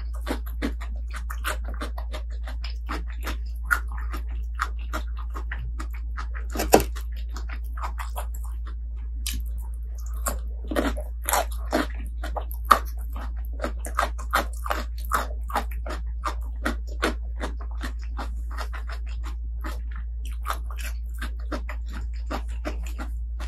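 Close-miked eating sounds: a person chewing, smacking and slurping food in an irregular stream of wet clicks and crunches, with a few louder smacks. A steady low hum runs underneath.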